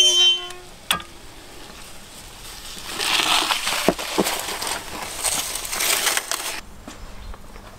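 A metal clank rings briefly at the start as the oven is opened, then a foil tray of baked fish scrapes and crinkles across the brick oven floor for a few seconds as it is pulled out, with a couple of small knocks; the scraping stops suddenly.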